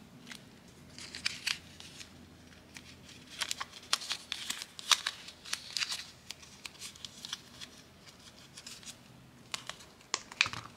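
Slime being pressed by hand into a thin plastic macaron mold: irregular short sticky clicks and crinkles of slime and flexing plastic.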